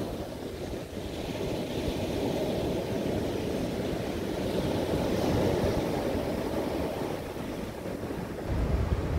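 Small sea waves breaking and washing up onto a pebble beach, a steady surf hiss that swells and ebbs. Near the end a low wind rumble on the microphone comes in and becomes the loudest part.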